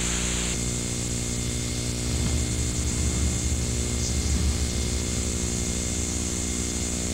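Steady electrical hum with even overtones and a low rumble under it, the kind of hum carried on an old videotape recording.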